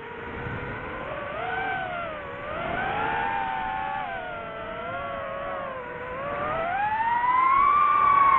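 DJI FPV drone's electric motors and propellers whining, the pitch rising and falling with the throttle, then climbing steadily and getting louder over the last couple of seconds.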